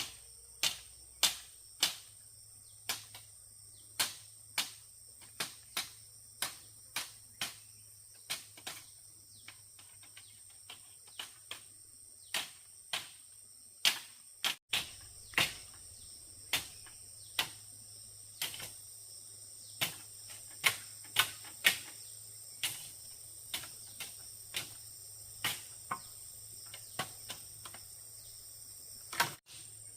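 Sharp knocks, irregularly spaced at about one or two a second, over a steady high-pitched insect chorus.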